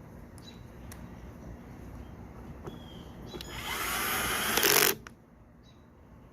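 Power drill driving a screw with a T25 Torx bit into the leaf blower housing: a whirring run of about a second and a half that grows louder and stops suddenly, after a few light clicks.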